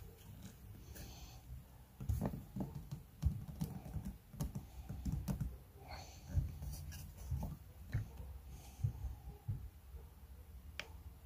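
Irregular light clicks, taps and low knocks from hands working a pine block against a clamp holding a clear Lexan (polycarbonate) lure bib while bending it, with handling bumps close to the microphone.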